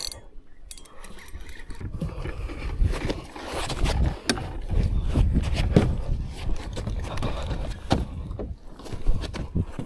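Angler fighting a dogtooth tuna on a jigging rod and spinning reel: a low rumble of handling and wind on the body-worn camera, with scattered knocks and scrapes as the rod is pumped and the reel is wound.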